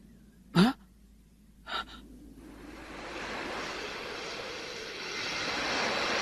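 Two short gasps, then a rushing noise that swells steadily louder over the last few seconds.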